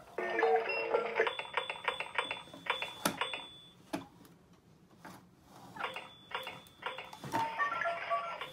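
Ninky Nonk toy train making rapid clattering clicks mixed with short bleeping tones as it moves along. The sound comes in two spells of about three seconds, with a quieter pause between them.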